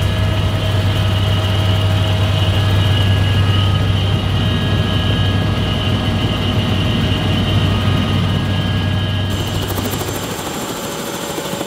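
Turbine helicopter running on the helipad, heard from inside the cabin: a steady low rotor hum with a thin turbine whine over it. Near the end it is heard from outside on the pad, a little quieter, with the rotor still turning.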